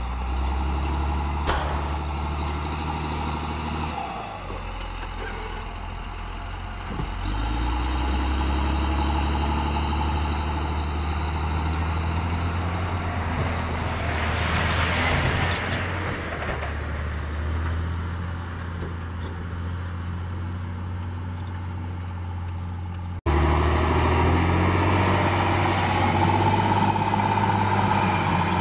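Motor grader's diesel engine running as the machine works loose soil, its note shifting up and down with the load. A hiss rises and fades around the middle, and near the end the sound cuts out for an instant and comes back louder.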